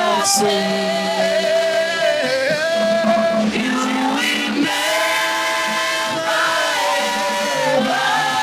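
Congregation singing a slow worship chorus in long held notes over instrumental accompaniment.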